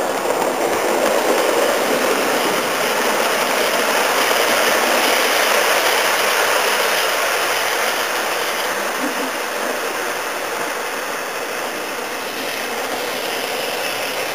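Model express trains, a Coronation Class and a Castle Class, running past each other on adjacent tracks. The wheels and motors make a steady running noise that is loudest in the first half and eases slightly later on.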